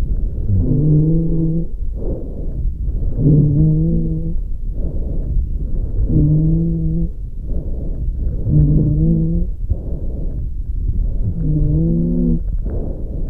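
Breath sounds from a lung heard through a stethoscope, a breath about every two and a half seconds, five in all. Each breath carries a low, musical drone over a rushing noise.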